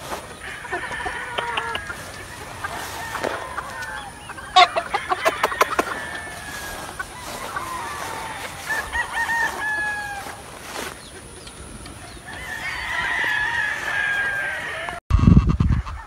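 Gamefowl roosters in wire pens crowing again and again, several long crows one after another, with a quick run of clucks about five seconds in. Near the end the sound cuts off and low rumbling follows.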